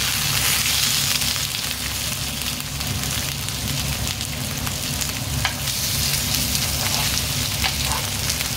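Salmon fillets pan-frying in hot oil in a frying pan: a steady crackling sizzle, with a few sharper clicks in the second half.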